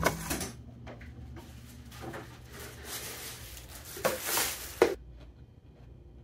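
Thin plastic shopping bag rustling and crinkling, then set down with a sharp knock, about four seconds in, over a low steady background hum.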